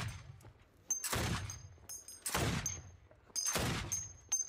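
Heavy machine gun fire: four loud reports roughly a second apart, each followed by a rolling echo.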